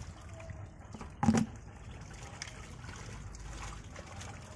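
Wet mud and water sloshing and trickling as a plastic basket scoops through a shallow pit full of fish, with one brief louder slap about a second in.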